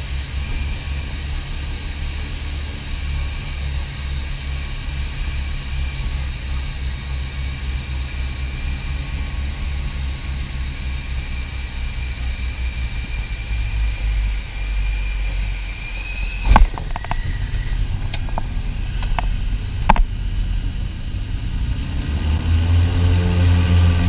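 Piper PA-44 Seminole's twin piston engines and propellers heard inside the cockpit, a steady low drone at reduced power on final approach. About two-thirds of the way through there is a sharp knock as the wheels touch the runway, followed by a few lighter clicks. Near the end the engines grow louder and deeper-toned as power comes up for the takeoff of a touch-and-go.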